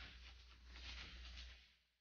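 Near silence: a faint rustle of fingers handling a small plastic figurine, fading out about one and a half seconds in, over a low steady hum.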